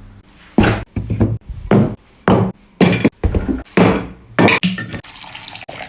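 A series of about ten sharp, heavy knocks at an uneven pace, roughly two a second, over background music.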